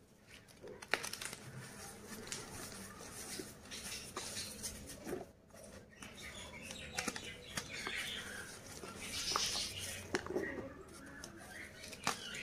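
Soft blocks of gym chalk squeezed and crumbled between bare hands: dry, irregular crunching and crackling with a few sharp snaps as pieces break, and powdery rustling as the crumbs sift through the fingers.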